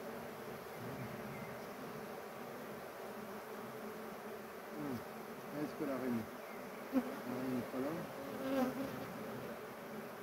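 Honeybees buzzing around an open hive: a steady hum, with the pitch swooping up and down as single bees fly close past, from about five seconds in to near the end.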